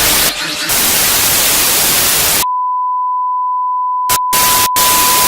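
TV-static hiss that cuts off abruptly about two and a half seconds in, giving way to a steady, high, single-pitch beep like a test tone. Bursts of static come back over the beep near the end.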